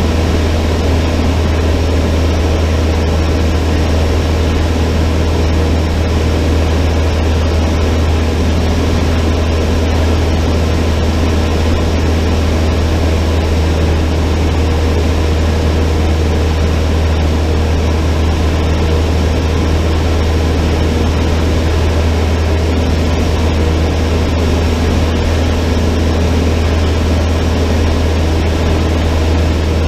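Cessna 152's four-cylinder Lycoming piston engine and propeller running steadily, a loud, even drone with a strong low hum.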